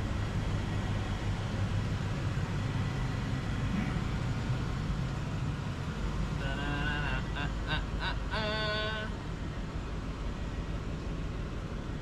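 Lexus GX460's 4.6-litre V8 idling as the SUV creeps slowly forward, a steady low rumble. A person's voice calls out briefly a little past the middle.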